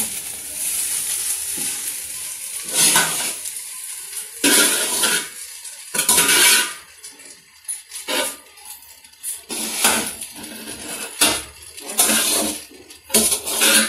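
A metal spoon scraping and clanking against the side of an aluminium pot as fried rice is stirred and turned, in irregular strokes about a second apart. A steady sizzle from the pot fades out over the first two seconds.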